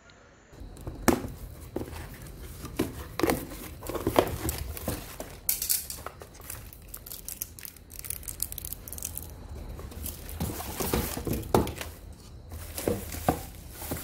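Plastic wrapping crinkling and cardboard rustling as fan parts are handled in a box, broken by many small irregular knocks and rustles.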